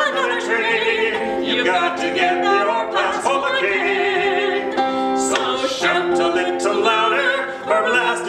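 Folk singing with instrumental accompaniment: the chorus of a miners' work song, with long held sung notes over steady sustained tones.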